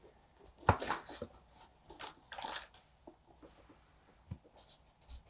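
Paper pages of a book being turned: two short rustles, the first starting with a sharp tap, followed by a few faint ticks.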